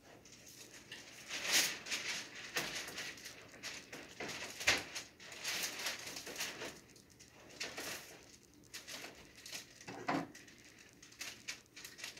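Irregular rustling and knocking from a framed fabric scrim being handled against a fabric backdrop, with a few sharper clicks from spring clamps being clipped onto its corners.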